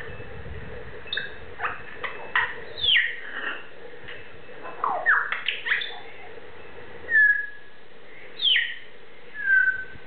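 Blue-and-gold macaw giving a string of short whistles and calls a second or two apart. Several slide quickly down in pitch, and a couple near the end are held briefly on one note.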